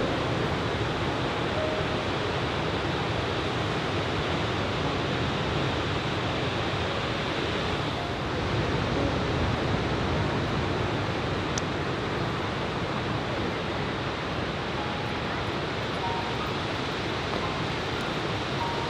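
Steady rush of ocean surf breaking on a sandy beach, mixed with strong wind.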